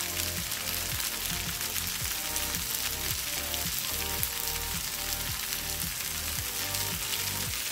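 Zucchini cubes sizzling steadily in hot oil in a frying pan, with background music and a regular low beat.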